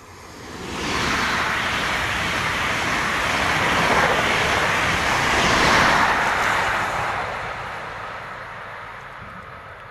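High Speed Train of Class 43 power cars and Mk3 coaches passing close at speed. It rises sharply about a second in, holds a loud steady rush of wheels on rail through the coaches, then fades from about seven seconds as the rear power car draws away.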